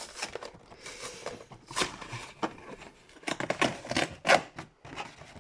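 Cardboard and plastic packaging of a trading-card collection box being opened and handled: irregular scrapes and rustles with short sharp clicks, busiest about three to four and a half seconds in.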